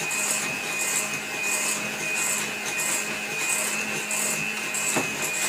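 Electric kitchen mixer running steadily, with a swishing that swells and fades about one and a half times a second as the beaters work through a cake mixture.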